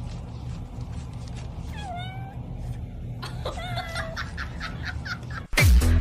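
Tabby cat giving two short meows, one about two seconds in and another about a second and a half later, over a low steady hum. Loud electronic dance music cuts in near the end.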